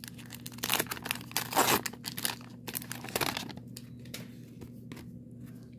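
Wax-paper wrapper of a 1990 Donruss baseball card pack crinkling and tearing as it is opened and the cards are pulled out. The crackling stops about three seconds in, leaving only a few faint rustles.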